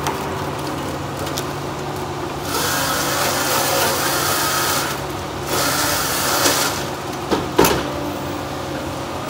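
Tigercat 234B knuckleboom loader's diesel engine running steadily while its grapple pulls a bundle of pine stems through a pull-through delimber: two long stretches of scraping and crackling as limbs are stripped off, then two sharp knocks near the end.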